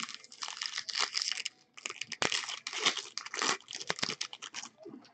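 Foil trading-card pack wrappers crinkling and tearing as packs are handled and opened by hand, a quick irregular run of rustles that thins out near the end.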